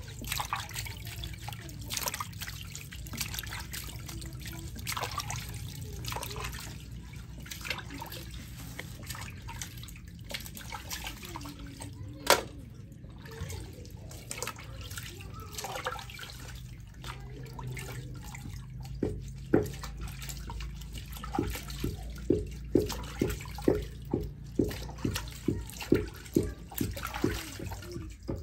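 Hands scrubbing dried fish in a metal basin of water, washing off its preserving salt: irregular splashing and dripping, with one sharp knock about twelve seconds in. In the last third the scrubbing turns into quick, regular wet slaps, about two a second.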